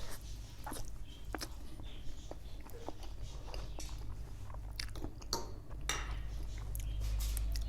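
A person chewing spicy noodles close to the microphone, with many short wet mouth clicks and smacks, over a steady low hum.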